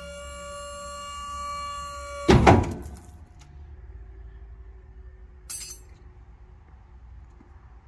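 Background music with held tones cuts off about two seconds in at a single loud metal clank. A quiet stretch follows, with one light metallic clink.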